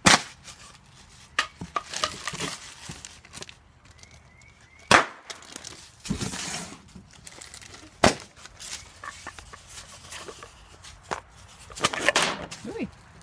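Sharp clicks and knocks of small glass essential-oil bottles being set down and moved on a metal mesh table, with a few stretches of paper and cardboard packaging rustling in between.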